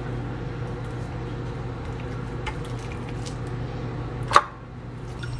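Chef's knife slicing through raw chicken thigh on a wooden cutting board: soft squishy cutting sounds and a few faint taps, then one sharp knock about four seconds in, over a steady low hum.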